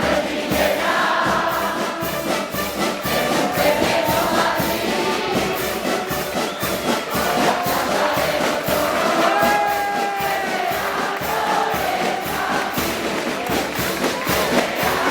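A crowd singing together over festival band music with a steady, fast beat.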